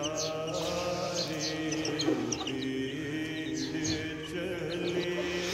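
Young chicks peeping in short, high, falling cheeps while they drink, over a steady background drone of held tones like distant chanting.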